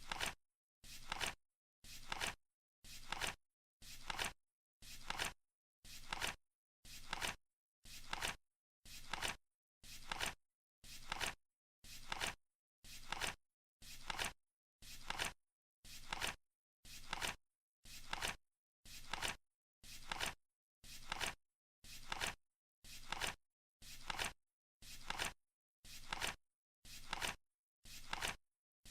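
Flip clock's cards flipping over once a second: a short dry rustle ending in a clack, repeated at an even beat with silence between.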